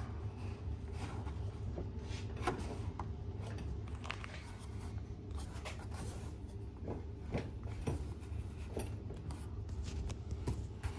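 Plastic scraping, creaking and clicking in short scattered bursts as a plastic bottle holder is twisted and squeezed into a slightly undersized hole in a ride-on toy car's plastic push handle, over a low steady hum.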